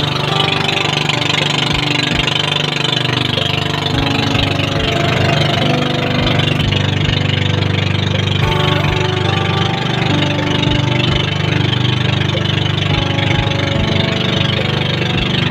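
Motor of a Filipino outrigger boat (bangka) running steadily underway, a loud, even low drone.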